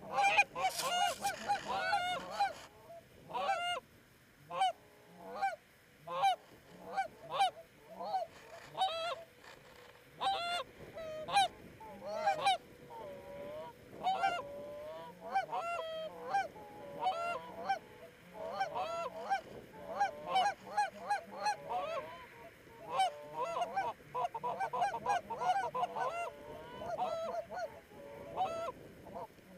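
Goose honking: a dense run of short honks and clucks, several a second, with a brief louder burst of noise about a second in.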